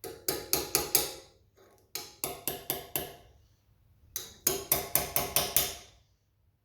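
Small hammer tapping a 3 mm mild steel rod through a tight hole in a steel rivet-heading block, three runs of quick ringing metal-on-metal taps with short pauses between.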